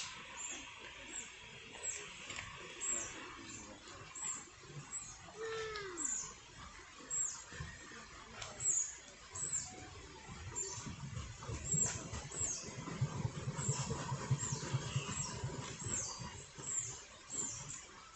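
Small birds chirping, short high calls that drop in pitch, repeated about once a second, over the even wash of a gurgling brook. A low rumble swells and fades in the second half.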